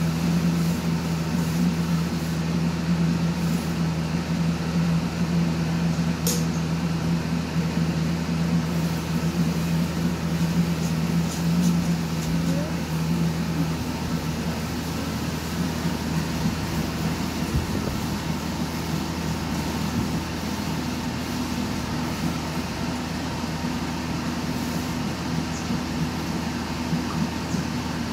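Steady mechanical hum with a low droning tone under an even hiss; the tone drops away about halfway through. There is a brief click about six seconds in.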